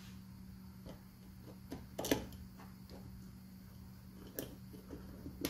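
Small screwdriver turning screws into a 3D-printed plastic housing: scattered light clicks and scrapes, the loudest about two seconds in, over a steady low hum.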